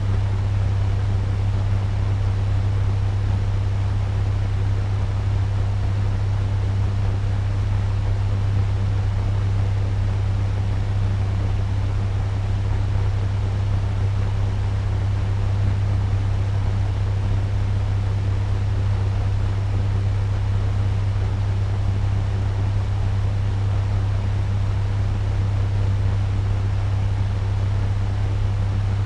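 Turbo fan running steadily at medium speed: a strong, even low hum under a constant airy rush.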